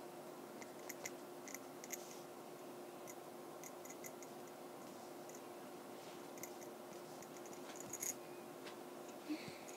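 Faint, light ticks and taps of a stylus writing on a tablet touchscreen, scattered irregularly, over a steady faint hum.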